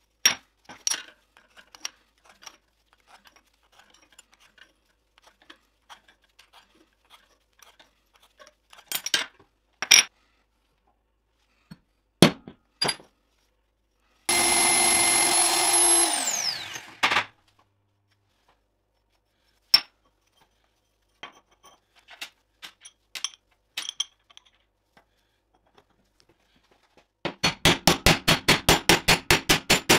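Workshop sounds of metal parts and power tools. Scattered clinks and knocks come first, then about halfway through a power tool runs for about two seconds and winds down as it stops. Near the end comes a rapid, even series of knocks, about seven a second, lasting about three seconds.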